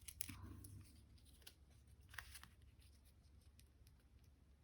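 Near silence with a few faint taps and rustles of paper card pieces being handled and pressed down, the clearest just after the start and about two seconds in.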